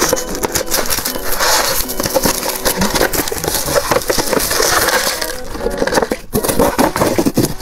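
Plastic shrink wrap crinkling and crackling as it is torn and stripped off a large paper bucket of instant noodles, a dense run of small crackles throughout.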